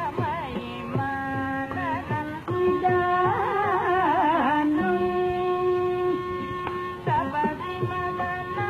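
Nadaswaram playing an ornamented Carnatic melody over a steady drone, with thavil drum strokes at the start and again near the end: South Indian temple procession music.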